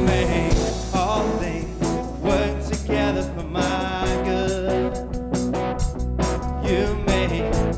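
Live church worship band music: a singer's melody over sustained instruments and a steady low bass.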